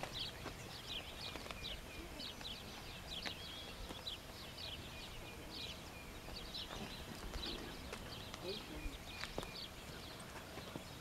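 Songbirds singing in the dawn chorus: a continuous string of short, high chirps, each falling in pitch, several a second.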